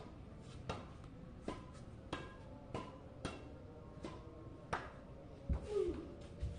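Badminton racket repeatedly tapping a shuttlecock: sharp, regular taps about every two-thirds of a second that stop about five seconds in. Two dull thumps close by follow near the end.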